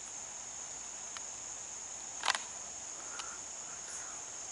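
Steady high-pitched insect chorus, a continuous even trill. A sharp click about two seconds in, with a couple of fainter ticks around it.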